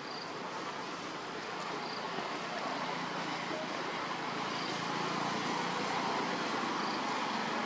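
Steady rushing outdoor background noise with a faint low hum, slowly growing louder, and a few faint short high chirps.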